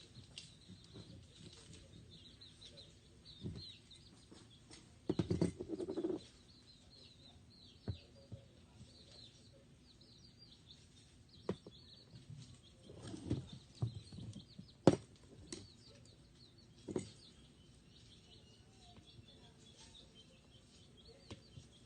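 Electrical tape being pulled off the roll and wrapped around motor wire splices: scattered handling clicks and a few short bursts of noise, with faint bird chirps in the background.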